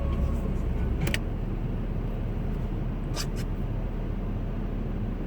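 Steady low rumble of road and engine noise inside the cabin of a 2010 Acura MDX as it is driven on a snowy road. A sharp click comes about a second in, where the deepest rumble eases, and a couple of brief faint ticks come about three seconds in.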